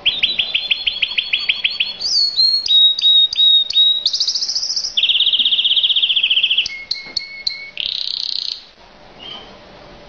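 A mosaic canary sings a song of about nine seconds made of successive phrases. Each phrase is a quick run of identical repeated notes, and a new phrase starts every second or so, among them a fast buzzy trill and a short lower whistle before a final trill.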